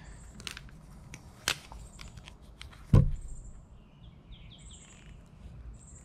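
Wire strippers and a wire being handled on a workbench: a few sharp clicks, the loudest a dull knock about three seconds in.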